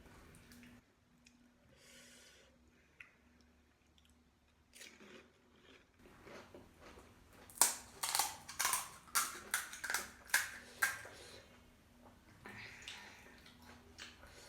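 Close-miked chewing of crunchy panipuri or chatpate: quiet at first, then a run of about ten loud, crisp crunches lasting around three seconds past the middle, easing into softer chewing near the end.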